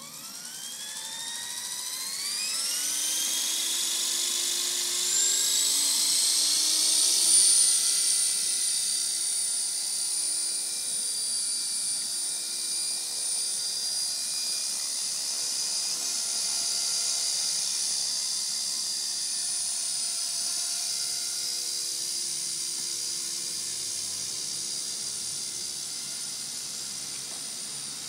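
Esky Belt CP V2 electric RC helicopter spooling up: a high whine of motor and rotor that rises in pitch over the first several seconds, then holds steady as it hovers and flies.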